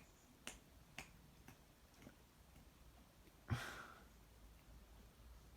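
Sharp clicks about twice a second, fading out after about two seconds, then one louder click with a brief tail about three and a half seconds in; otherwise near silence.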